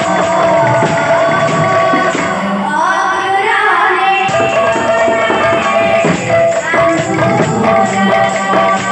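Kirtan music: a voice singing a melody over a barrel drum and large hand cymbals beating a steady rhythm.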